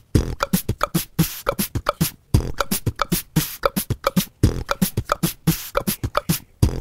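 Background beat of beatbox-style vocal percussion: quick, sharp hits and clicks, several a second, in an even rhythm with short pitched blips, pausing briefly twice.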